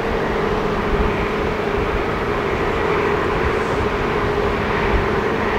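Tugboat's diesel engines droning steadily as it passes, with a constant low hum.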